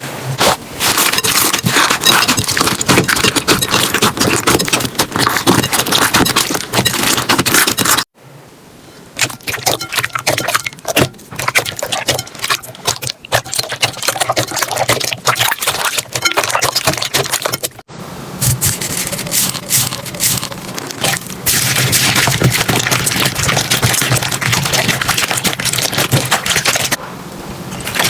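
Slime being squished, poked and stretched by hand, giving dense crackling, clicking and sticky popping. The texture changes abruptly twice, quieter and sparser from about 8 seconds in and denser again from about 18 seconds.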